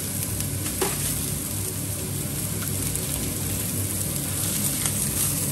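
Pork steaks sizzling on a cast-iron griddle plate: a steady frying hiss with an occasional pop.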